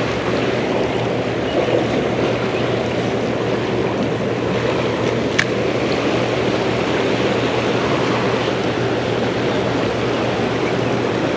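Steady rush of turbulent water churning in the tailwater below a dam, with a single short click about five seconds in.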